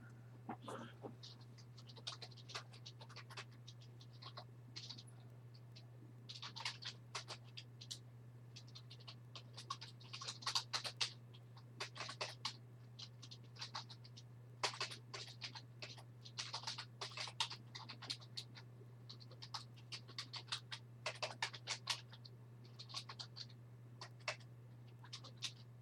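Typing on a computer keyboard in irregular bursts of quick key clicks, over a steady low electrical hum.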